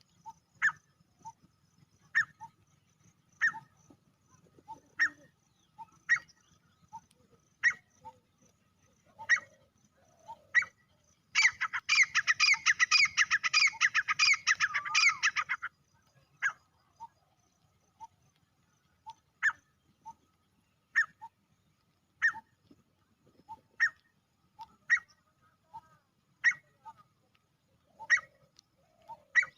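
Male grey francolin calling: short, sharp single calls about every second and a half. About eleven seconds in comes a loud run of rapid repeated calls lasting about four seconds, then the single calls resume.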